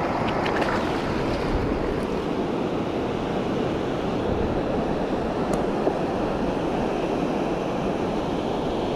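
Ocean surf washing in over the sand with wind on the microphone, a steady rush of noise.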